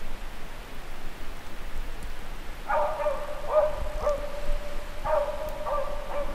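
Drever driving dog baying on the track, a run of drawn-out bays that begins about three seconds in over a steady hiss. The baying is the dog giving tongue as it follows game on the drive.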